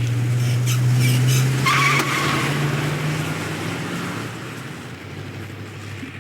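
Car engine revving as the car pulls away, with a tyre screech about two seconds in. The engine then fades steadily as the car drives off.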